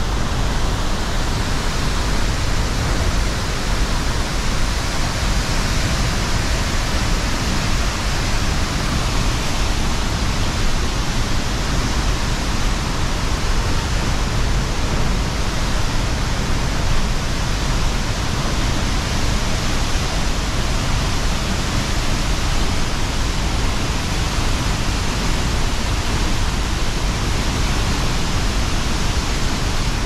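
La Fortuna waterfall pouring into its plunge pool: a loud, steady rush of falling and churning water.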